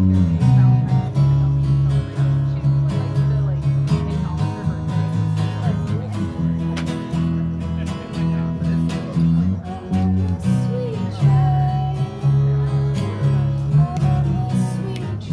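Live acoustic guitar music: a steadily strummed acoustic guitar with a second guitar, over strong low notes that change with the chords, with no words sung.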